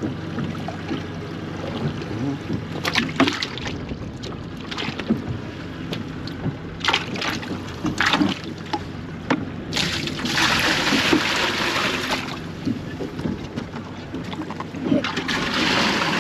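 Small fishing boat on the water: a steady low hum under scattered knocks and rattles of gear on the boat, with two longer rushes of hiss, about ten seconds in and near the end.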